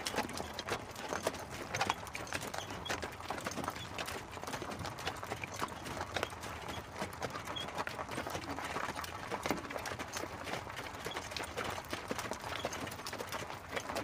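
Hooves of two horses pulling an open carriage, a steady, continuous clip-clop of many quick, irregular hoof strikes.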